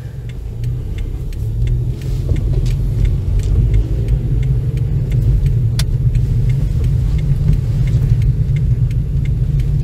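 Low rumble of a car, heard from inside the cabin, as it pulls away and turns on a wet road. The engine and road noise build over the first few seconds, with a few light clicks scattered through.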